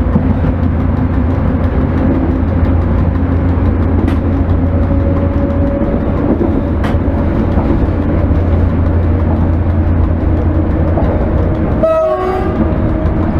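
Steady running noise of an ET22 electric locomotive heard from inside its cab: a low, constant hum with wheel-on-rail rumble and a few sharp clicks, likely rail joints passing beneath. A short warble breaks in about twelve seconds in.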